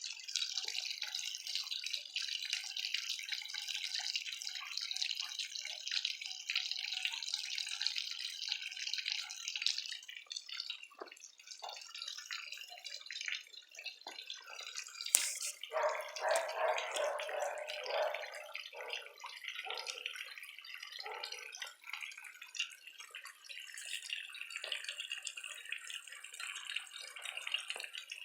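Water from a small pump-fed fountain falling and splashing steadily into a small pond, with one sharp click about halfway through.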